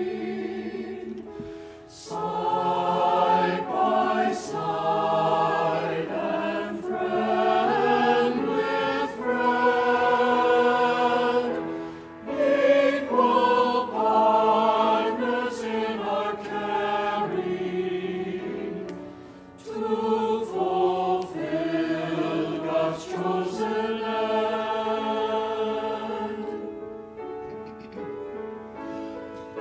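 Mixed-voice church choir singing an anthem in sustained phrases, with short breaks between phrases about 2, 12 and 19 seconds in.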